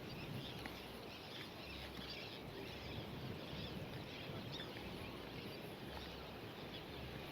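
Many birds chirping and calling, faint and overlapping; the speaker puts the noise down to the nesting season, when they are busy laying eggs.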